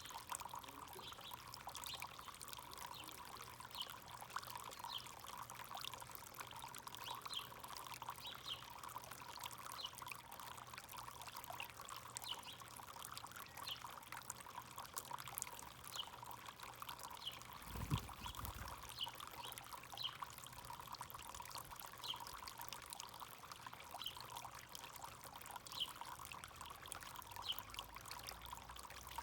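Backyard fountain water pouring and trickling steadily, with many short, faint bird chirps over it and a single dull thump about two-thirds of the way through.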